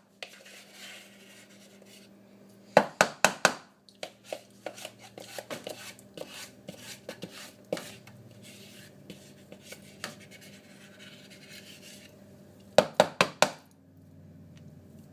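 Kitchen utensil rapped against a mixing bowl in two quick runs of five or six sharp knocks, about three seconds in and again near the end, with lighter scattered clicks and scraping of the batter in between.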